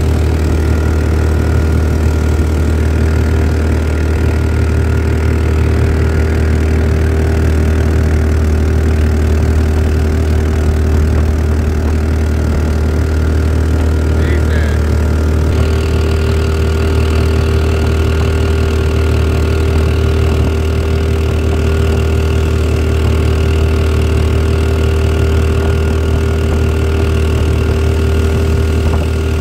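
459cc Harbor Freight engine driving a 12 ft jon boat, running steadily under way with a loud, even low drone. About halfway through, a higher steady whine joins the engine note.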